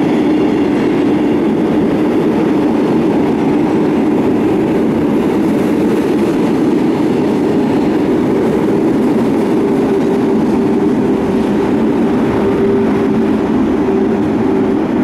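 Renfe class 450 double-deck electric multiple unit running past along the platform: a steady rumble of the moving train, with a steady hum coming in about two-thirds of the way through.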